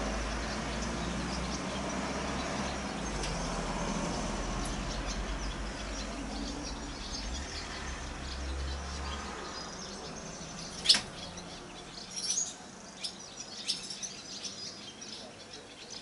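A low rumble fades out over the first nine seconds or so. Then a barn swallow gives one loud, sharp call about eleven seconds in, followed by several short high chirps.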